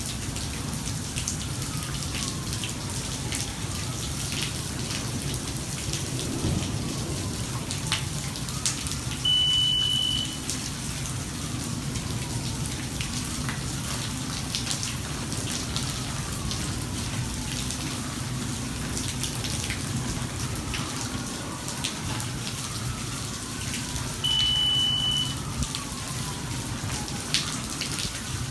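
Steady thunderstorm rain with many close drops striking. Twice, about fifteen seconds apart, a high electronic beep sounds for about a second.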